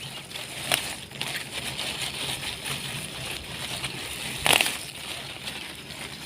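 Rustle and crackle of pegaga (Asiatic pennywort) plants being picked by hand, with a sharp click just under a second in and a louder crackle about four and a half seconds in.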